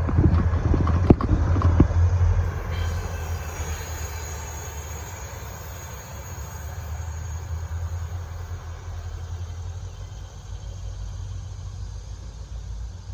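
MARC commuter test train, an MP36PH-3C diesel locomotive and cab car, passing: wheels clacking sharply over the rail joints for the first couple of seconds, then a low rumble that fades steadily as the train moves away.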